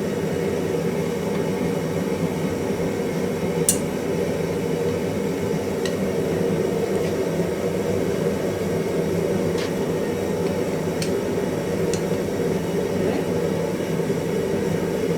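Blacksmith's forge running with a steady rushing noise of air and fire while a large piece of iron is brought up to forge-welding heat, with a few scattered sharp clicks or pops over it.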